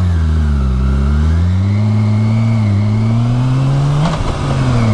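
BMW K1600B's inline-six engine pulling away under acceleration: its pitch dips briefly, then climbs steadily, and there is a short break and click about four seconds in, typical of an upshift, after which it runs steady.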